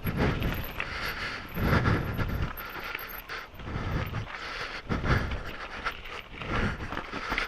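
Canyon Sender full-suspension mountain bike rattling and clattering over rough rocky ground, with many sharp knocks from the bike and tyres. About five heavy breaths blow straight onto the microphone every second or two.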